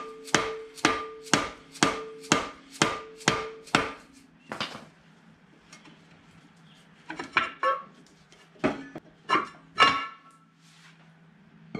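Dead blow hammer striking a steel brake drum about twice a second, eight blows in a row, to loosen the drum off the hub. After a pause, a few short metallic clunks with a brief ring as the loosened drum is worked off.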